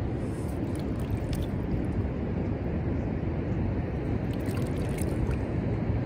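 Wind rumbling on the microphone, a steady low buffeting noise, with a few faint light ticks about a second in and again near the fifth second.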